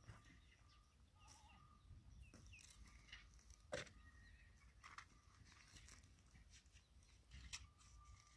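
Near silence: faint outdoor ambience with a few soft, scattered clicks, the loudest a little under four seconds in.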